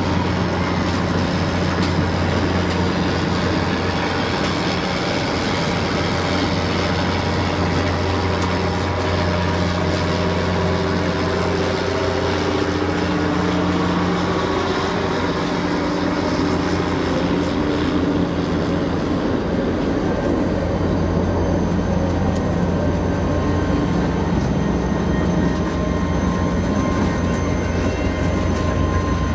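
Railroad locomotive running steadily: a loud, even low hum with mechanical noise over it and a slight drift in pitch midway.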